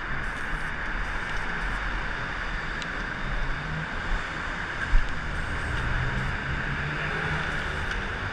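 Steady road-traffic noise from cars passing on a city street, with a single short thump about five seconds in.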